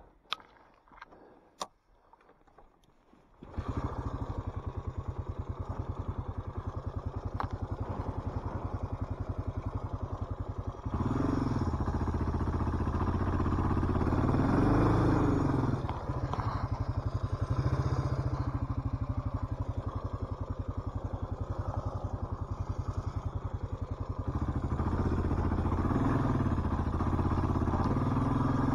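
Suzuki DR650's single-cylinder four-stroke engine starting suddenly about three and a half seconds in, after a few faint clicks. It idles steadily, then gets louder as the bike pulls away, with the revs rising and falling as it rides.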